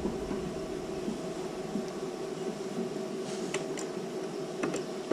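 Steady hum and hiss of a powered-up PA sound system idling with no music playing, with a few faint clicks in the second half.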